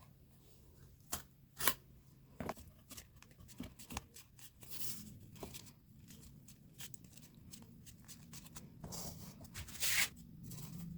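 Cardboard and paper being handled and cut: rustling, scraping and scattered sharp clicks, with a louder rustle about ten seconds in.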